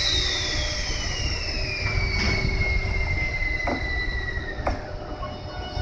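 EF81 electric locomotive and its freight train starting to move off, with a low rumble throughout. A high whine slides steadily down in pitch for about five seconds, and there are three sharp knocks along the way.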